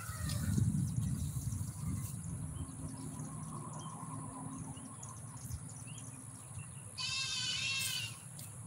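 A goat bleats once near the end, a wavering call lasting about a second. Before it come low scraping and rustling sounds as a garden hoe drags soil and leaves aside.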